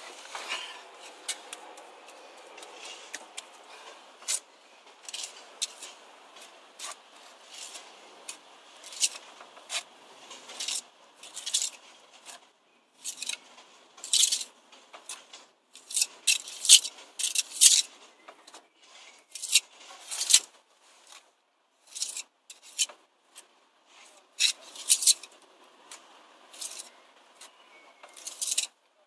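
Steel pointing trowel scraping fresh mortar into the joints of brickwork: short, irregular scrapes, some in quick runs of two or three.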